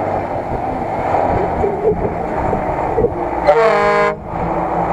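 Off-road SUV engine running as it drives up a dirt track, with a single horn toot lasting under a second about three and a half seconds in.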